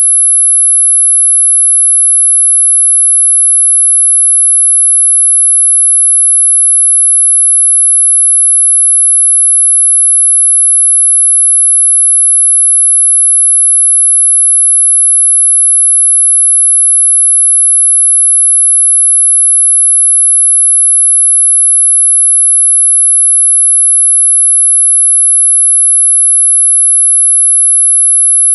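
A steady, unwavering pure sine tone at about 11 kHz. It is a synthesized tone for masking high-pitched tinnitus ringing.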